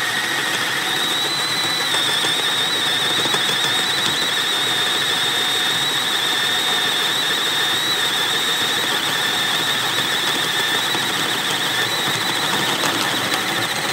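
Hyper Tough cordless drill driver running steadily under load, a high wavering motor whine, as a spade bit bores through a wooden board.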